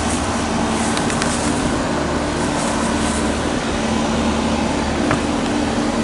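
A 1981 General Electric central air conditioner's outdoor condensing unit running steadily: a constant hum with a low drone over the rush of its condenser fan.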